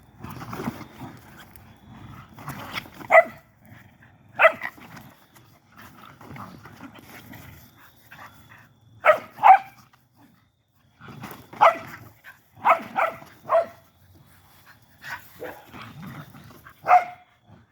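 Dog barking: about ten short, sharp barks at irregular intervals, some in quick pairs, with quieter low rumbling between them.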